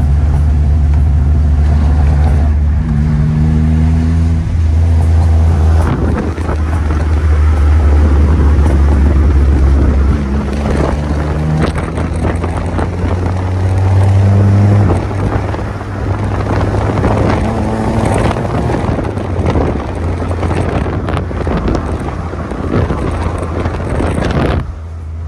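Car engine and road noise heard from inside the cabin while driving, the engine note rising and falling several times as the car speeds up and slows.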